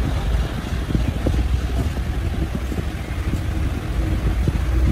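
Crankshaft grinding machine running: a steady low hum with a faint steady whine over general machine noise, and scattered light clicks.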